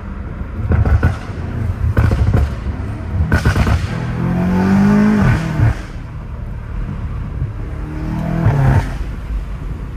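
BMW M5 Competition's twin-turbo V8, with aftermarket intakes and a straight-piped exhaust, under way. First comes a run of exhaust pops and crackles. About three seconds in the engine is pulled hard, its note rising, then drops off about two seconds later. A shorter rev-up and release comes near the end.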